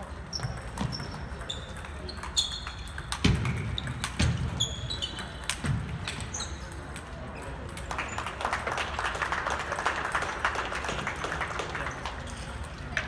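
Rubber-soled shoes squeaking in short chirps on a hardwood gym floor and table tennis balls clicking, over the chatter of a large hall. There are low thuds about three and four seconds in, and a few seconds of hissing noise after the middle.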